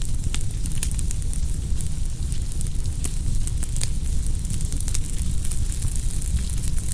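Wood fire burning: a steady low rumble of flames with frequent, irregular sharp crackles and pops.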